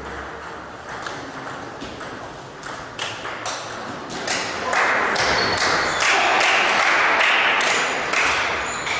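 Table tennis ball clicking off bats and table in a rally, with more pings from neighbouring tables. About halfway through, spectators burst into applause after the point; the clapping is the loudest sound and dies away near the end.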